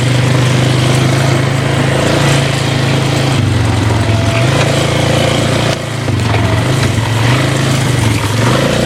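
Four-wheeler (ATV) engine running under way, its pitch rising and falling with the throttle and dropping briefly about six seconds in.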